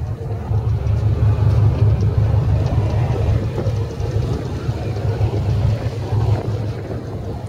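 Ferry's engine running underway, a steady low rumble.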